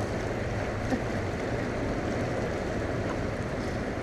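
Steady low rushing of moving water around a boat, even throughout with no distinct knocks or calls.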